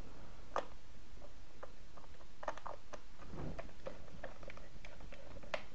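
Screwdriver turning a faceplate screw into a plug socket: scattered light clicks and ticks of metal on metal, a small cluster about halfway through.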